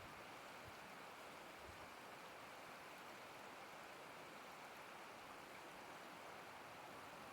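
Clarion River water rushing over rapids: a faint, steady hiss.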